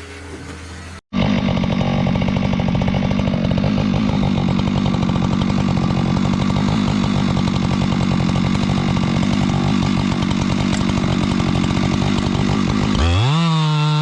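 Chainsaw engine running steadily at high revs, starting abruptly about a second in. Near the end its revs drop and then climb back up.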